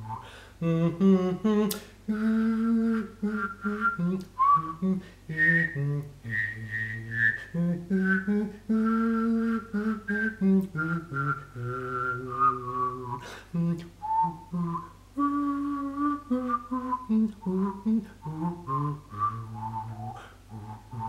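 A man whistling a melody and humming a lower part at the same time: a high whistled tune over a low hummed line, moving note by note with short breaks for breath.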